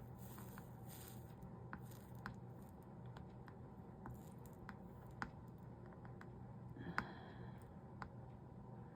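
Quiet stained glass soldering work: faint scattered ticks and small taps over a steady low hum, with one sharper click and a brief fizz about seven seconds in.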